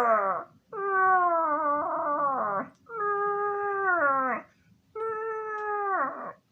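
A person's voice making four long held vocal noises, each held at one pitch and then sliding down at its end.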